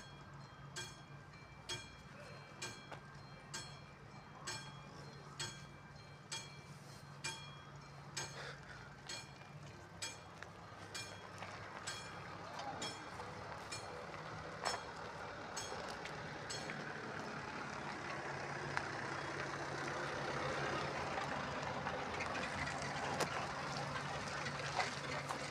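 Level-crossing warning bell striking about once a second, its strikes fading out after about ten seconds, while the noise of an approaching train on the rails grows steadily louder.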